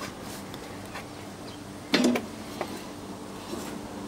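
Shredder motor running with a steady hum, and one sharp clatter about two seconds in.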